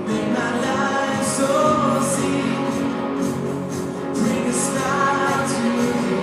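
Church worship band playing a song with singing over the instruments.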